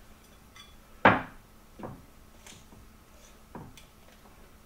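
Cleaver chopping through rabbit joints onto a wooden cutting board: one sharp chop about a second in, a lighter knock just under a second later, and a couple of faint knocks near the end.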